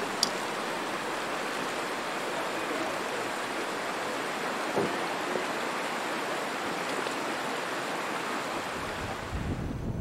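Steady rush of fast, shallow river water running over gravel. Near the end it gives way to low gusts of wind on the microphone.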